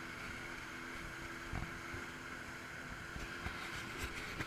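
Sea-Doo personal watercraft engine running steadily at low speed, a constant hum, with a few soft thumps of water or wind against the craft.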